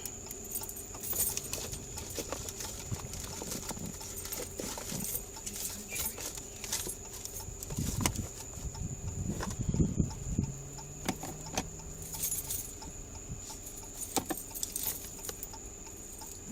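Keys jangling and loose items rattling and clicking as they are handled during a car search, with a cluster of heavier knocks and rustling about eight to ten seconds in. A faint steady high whine sits underneath.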